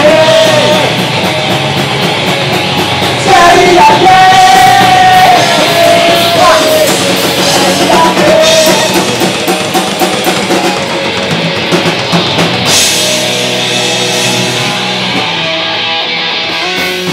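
Live rock band playing: electric guitars and a drum kit under a male singer, who holds long sung notes in the first half.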